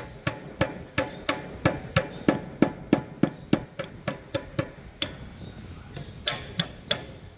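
Hammer blows struck at a steady rate of about three a second, slowing to a few spaced strikes in the last couple of seconds.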